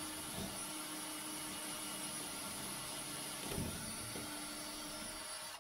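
Cordless drill running steadily as it bores a hole through the boat's composite cabin side, a constant motor whine under the cutting noise, cutting off suddenly at the end.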